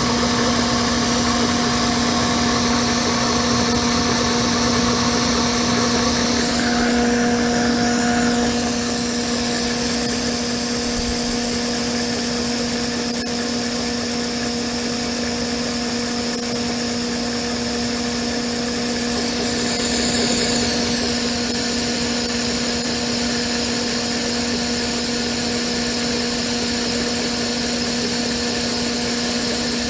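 Abene milling machine running a 1-inch fine roughing end mill through a metal block on a 100-thou roughing pass: a steady machine hum with the cutting noise of the end mill over the hiss of the mist coolant spray.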